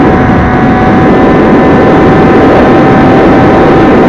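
Small RC airplane's electric motor and propeller in flight: a steady whine at one pitch, buried in loud wind buffeting on the onboard camera's microphone.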